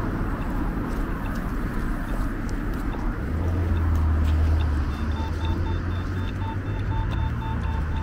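Street traffic noise, with a vehicle's low engine rumble swelling about three seconds in. Over it, near the end, a rapid regular electronic beeping, about four beeps a second.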